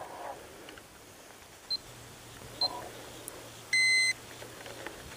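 A digital luggage scale gives one short electronic beep about four seconds in, as it registers the weight of a bass hanging from it. A couple of faint ticks come before it.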